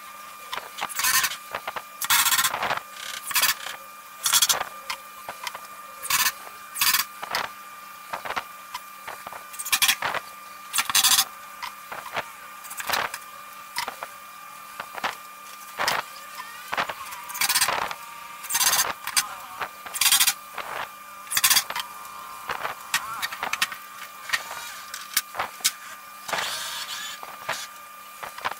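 Irregular short knocks and scrapes of wood and tools being handled, about one a second, over a faint steady hum.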